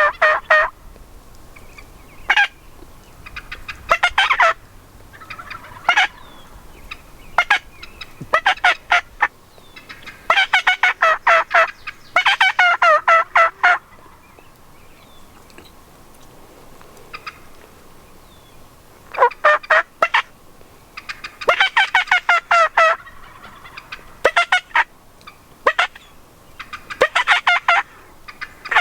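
Wild turkey gobblers gobbling over and over, the rattling gobbles sometimes overlapping as several birds answer one another, with a lull of a few seconds midway.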